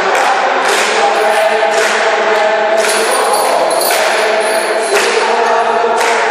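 Mixed choir singing in a church, holding sustained chords, with a light percussive hit recurring about once a second.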